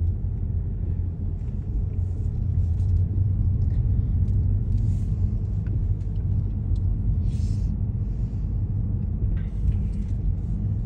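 Car driving slowly, heard from inside the cabin: a steady low road and engine rumble, with a few faint brief noises over it.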